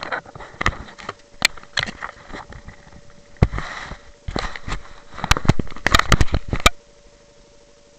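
Handling noise from a small action camera being moved and fumbled with: a quick string of knocks, clicks and scrapes with a rustle in the middle, stopping abruptly a little before the end, over a faint steady electrical whine.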